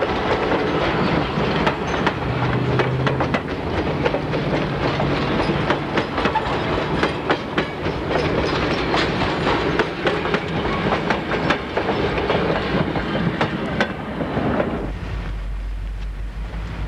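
Passenger train coaches rolling past close by, steel wheels clicking rhythmically over the rails with a dense running rumble. About fifteen seconds in, the sound cuts abruptly to a steady low rumble.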